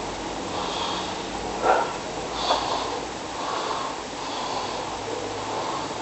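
A sleeping person snoring, with noisy breaths and a short snort about a second and a half in.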